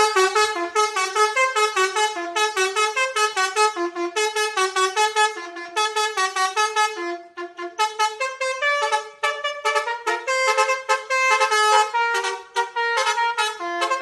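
Basuri telolet bus horn, a multi-tone musical horn, playing a fast melody of short stepped notes, about four to five a second, with a short break about seven seconds in.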